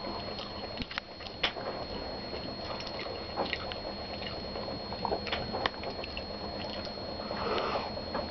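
A man chewing a crunchy snack close to the microphone, mouth partly open: irregular small crunches and wet mouth clicks.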